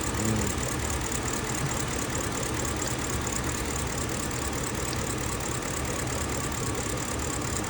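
BMW 650 engine idling steadily with an even fine pulse. It is running with a misfire, traced to an ignition coil that doesn't work.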